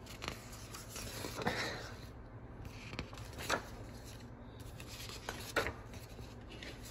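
Glossy paper sheets and magazines being handled and shuffled on a table: a soft rustle and slide of paper with a few light taps.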